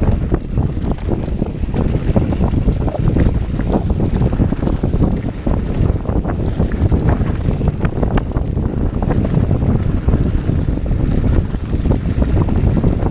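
Santa Cruz Hightower 27+ mountain bike descending hard-packed dirt singletrack at speed. Wind buffets the action-camera microphone over the rumble of the tyres, with many short clicks and rattles from the bike over bumps.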